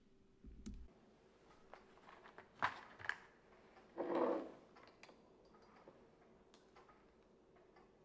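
Faint handling sounds of a small glass essential-oil bottle and dropper: a few light clicks a little before the middle, then a short soft scrape as the bottle is set down on the table, followed by scattered small ticks.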